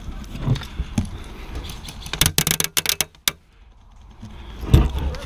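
Airsoft gun firing a rapid burst of sharp clicking shots, about ten a second for roughly a second. Around it, a few dull knocks of gear or handling close to the microphone.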